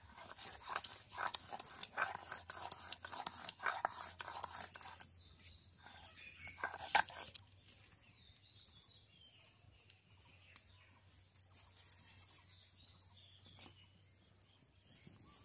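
Stone grinder scraping and knocking on a stone grinding slab (sil-batta) for about seven and a half seconds, then it stops and all is quieter. Birds chirp now and then.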